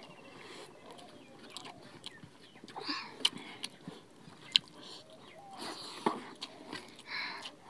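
People eating rice and curry with their hands: chewing and lip-smacking mouth sounds, broken by a few sharp clicks about three, four and a half, and six seconds in.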